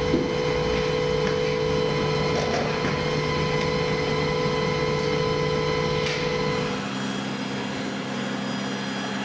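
Steady machinery drone with a held whine over a noise bed. About seven seconds in it gives way to a different, slightly quieter steady hum.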